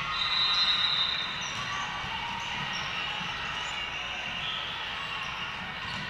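Athletic shoes squeaking on a hardwood gym floor, the loudest squeak in the first second and fainter short squeaks after, over the steady din of a busy sports hall.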